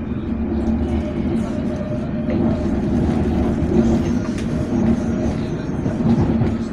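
London Underground train running, a loud steady rumble with scattered faint clicks, heard from inside the carriage.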